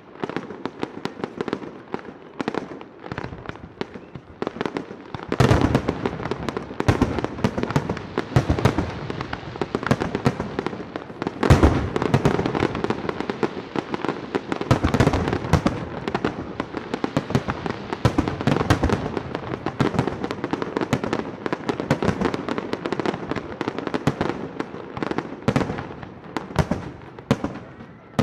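Professional aerial fireworks display: a dense, continuous barrage of shell bursts and sharp bangs following one another several times a second. It gets louder and thicker about five seconds in.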